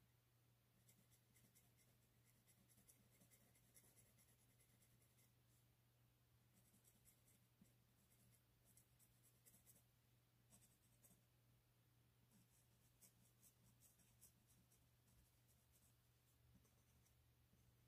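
Faint scratching of a colored pencil shading on paper: runs of quick, short strokes broken by brief pauses.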